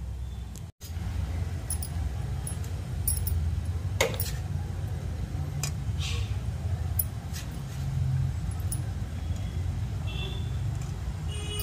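Light, scattered clicks and taps as dumplings and fingers touch a perforated stainless-steel steamer plate, the strongest about four seconds in, over a steady low hum. The sound cuts out for an instant just under a second in.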